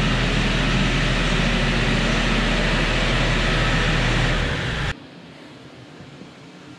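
Kioti DK5310 compact tractor's diesel engine running steadily as the tractor drives forward. The sound cuts off suddenly about five seconds in, leaving faint room tone.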